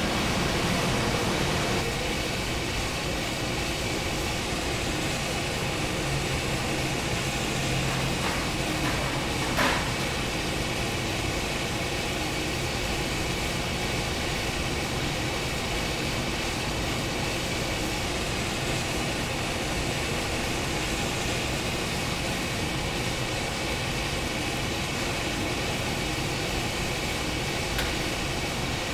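Steady hum and rush of running factory machinery, with a sharp knock about ten seconds in and a fainter one near the end.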